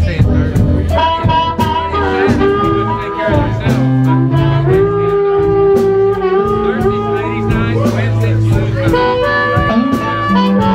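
Amplified blues harmonica, cupped against a microphone, playing a solo of long, bending notes over a blues band backing.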